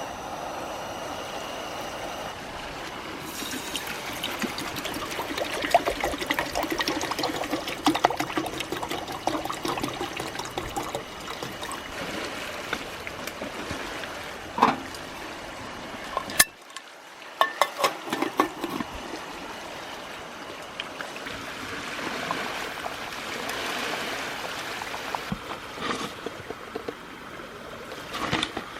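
Water trickling and splashing, with many small sharp splashes, dropping away suddenly about halfway through and then coming back.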